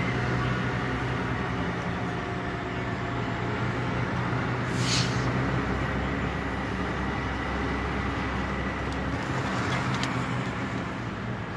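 Inside the cab of a moving DAF CF 85.410 truck: its six-cylinder diesel engine runs with a steady drone under road noise, with a short hiss about five seconds in.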